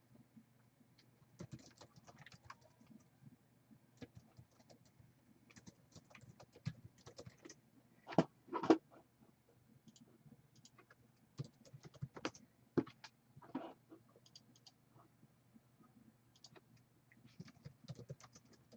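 Typing on a computer keyboard: scattered, irregular key clicks, with two louder knocks about eight seconds in.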